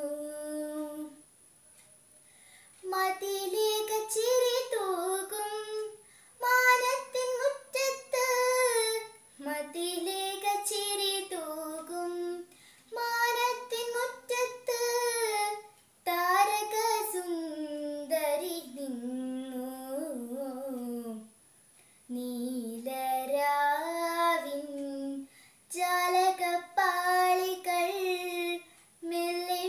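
A young girl singing a Malayalam lalithaganam (light song) solo and unaccompanied, in phrases broken by short pauses.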